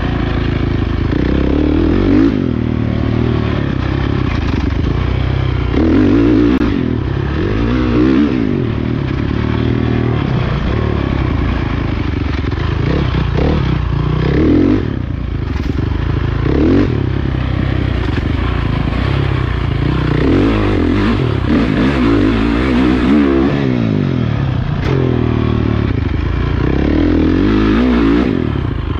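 Motocross dirt bike engine under load, its pitch climbing and falling again and again as the rider accelerates and backs off around the track, heard close up from the bike. A few knocks from the bike over the rough ground.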